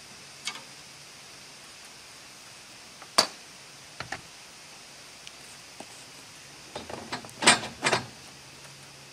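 Scattered sharp metallic clicks of fittings being tightened on an aluminum roof-rack frame, the sharpest about three seconds in, then a quick cluster of louder knocks near the end as the Starlink Mini antenna is lifted out of its mount.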